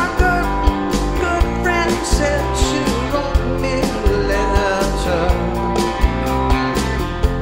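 Live rock band playing: a male voice singing over strummed acoustic-electric guitar and sustained chords, with a steady drum beat.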